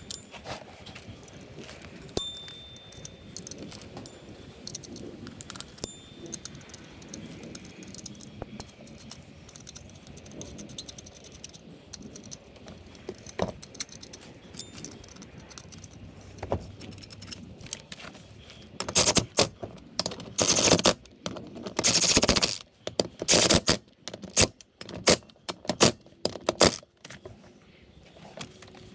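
Metal hand tools and parts clinking and rattling during brake pad work. It starts with scattered light clicks, then comes a run of louder rattling bursts about two-thirds of the way in.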